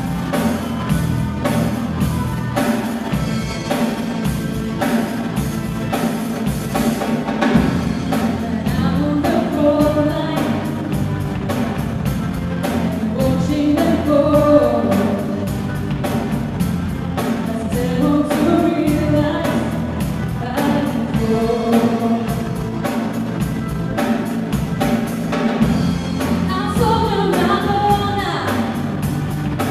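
A live band plays a song: a female vocalist sings into a microphone over drum kit, electric guitar and keyboards. The voice comes in several seconds in, after an instrumental stretch.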